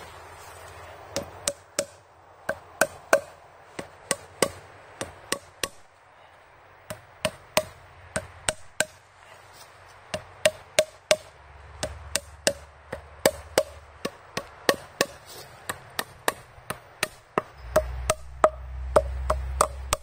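A small hammer tapping enoki mushroom spawn plugs into drilled holes in a cherry log. Sharp wooden knocks come a few a second in short runs of two or three blows per plug, with brief pauses between plugs.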